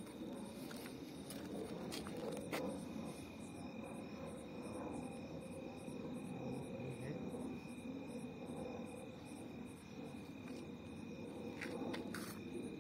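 Crickets chirping at night: high chirps repeating evenly, about two to three a second, over a steady high trill. A few sharp clicks and some low handling rumble come from the camera.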